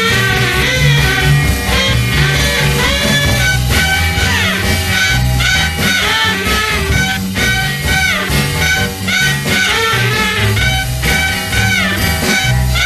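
Instrumental break of a swing-style rock-and-roll song: a saxophone plays a bending lead line over bass and drums.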